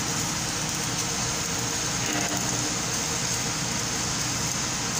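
Stick welding arc crackling and hissing steadily as a bead is run on steel.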